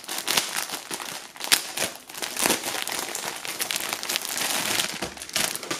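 A thin clear plastic bag being torn open and pulled off a folded T-shirt, crinkling and crackling throughout, with a few sharper crackles.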